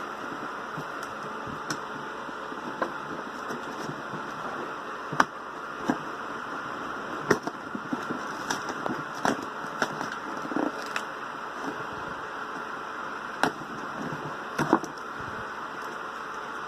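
Scattered sharp clicks and taps, about a dozen, from hands handling die-cast toy cars and their packaging, over a steady hiss.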